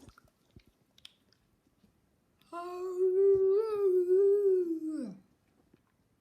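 A dog giving one long, wavering, howl-like "singing" call lasting about two and a half seconds, starting a couple of seconds in and sliding down in pitch as it ends.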